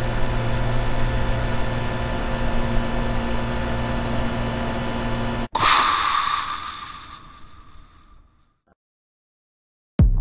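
Sci-fi machine sound effects: a steady electrical hum cuts off abruptly about five and a half seconds in. A loud hissing rush follows and fades away over about three seconds. Electronic drum-machine music kicks in right at the end.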